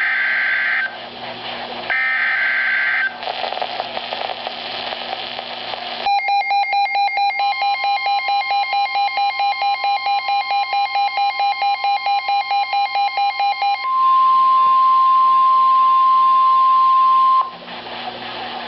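NOAA Weather Radio Emergency Alert System alert for a Winter Storm Warning. Two harsh digital SAME header data bursts come first, then radio static, then about eight seconds of a receiver's rapid pulsing alarm beeps, about five a second, over the steady 1050 Hz warning tone. The warning tone then continues alone for about three and a half seconds and cuts off, leaving static hiss.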